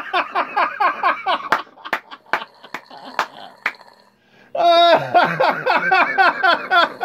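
A man snoring hard: a fast, rattling snore, sputtering like a weed eater. It thins to a few clicks and a brief lull, then comes back louder about four and a half seconds in.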